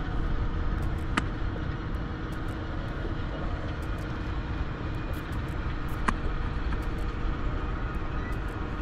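A steady low rumble with a faint hum, broken by two sharp clicks, one a little over a second in and one about six seconds in.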